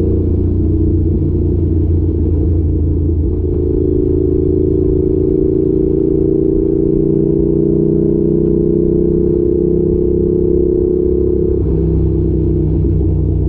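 Yamaha YZF R7's 689 cc parallel-twin engine running through an Arrow exhaust while riding, held at steady throttle. Its pitch climbs slowly from about three seconds in, then drops abruptly near the end.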